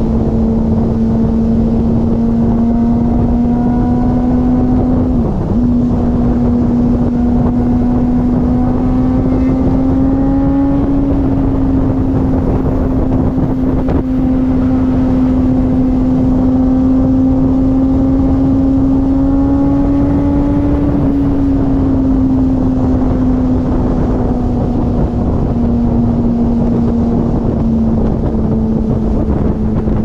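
Straight-piped exhaust of a 2005 Yamaha YZF-R1's inline-four engine at cruising speed, holding a steady note that climbs slowly, dips briefly about five seconds in and eases down near the end. Wind rushes over the microphone throughout.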